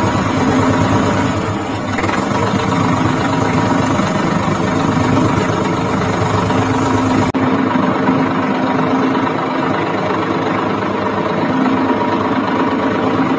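Engine running steadily at an even pitch, like a tractor at idle. The higher hiss drops out abruptly about seven seconds in, though the engine note carries on.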